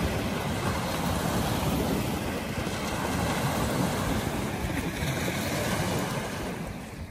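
Wind buffeting the microphone, with small waves washing onto the shore.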